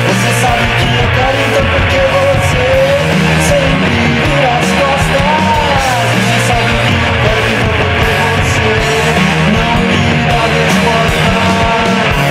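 Rock music played by a band: distorted electric guitar, bass and drums at a steady loud level, with a wavering lead melody over the first half.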